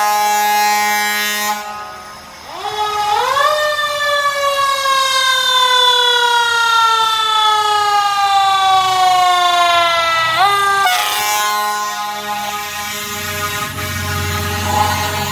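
Fire truck air horn and siren. A steady horn blast sounds at the start. About two and a half seconds in, the siren winds up, then slowly falls away over about seven seconds and briefly rises again; steady horn blasts return after that, with a low engine rumble as the truck passes close near the end.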